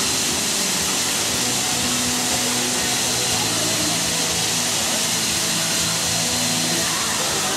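Steam locomotive No. 70 letting off a loud, steady hiss of steam, with a faint low hum beneath it.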